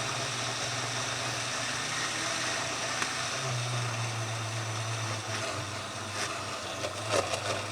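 Electric blender running steadily on its chop setting, churning chopped herbs, garlic and oil into a seasoning paste. Its speed wavers a little past the middle, with a few rattles near the end.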